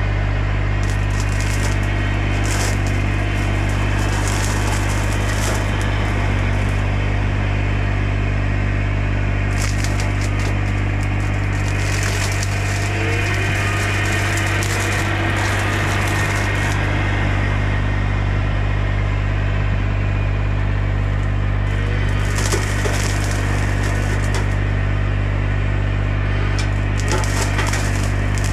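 Bobcat E35 mini excavator's diesel engine running steadily at high revs, driving a hydraulic Baumalight CXC530 brush cutter. The spinning cutter chops limbs and brush, with spells of crackling every few seconds.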